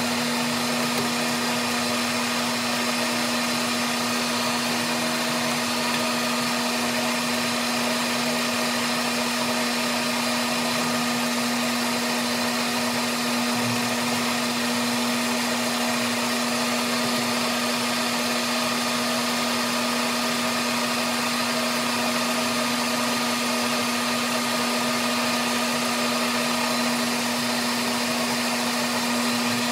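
Metal lathe running steadily while turning an aluminium part with an insert cutting tool: a constant machine hum with one strong steady tone over an even hiss.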